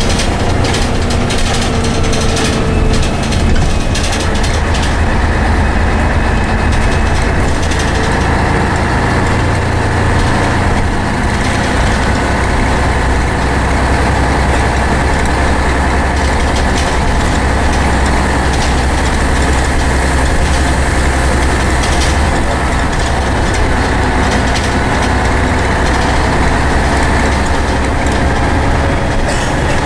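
Scania N113CRB single-decker bus with a Voith automatic gearbox, heard from inside the saloon while under way: a loud, steady engine drone, which deepens a little about eleven seconds in.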